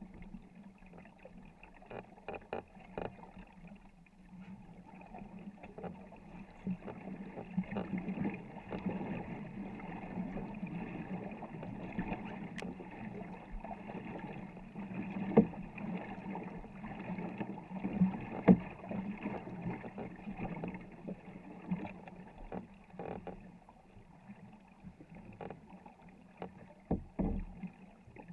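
Canoe paddles digging and pulling through the water, with splashing along the wooden hull of a 24-foot war canoe, and a few sharp knocks, the loudest about midway through.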